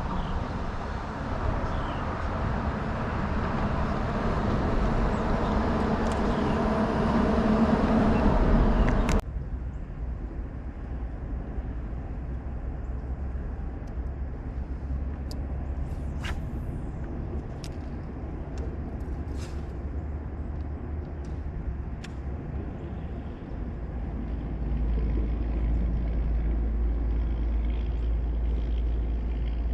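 Steady engine-and-wind noise of a boat under way, growing louder for about nine seconds and then cutting off suddenly to a quieter low rumble with a few light clicks. The rumble swells again near the end.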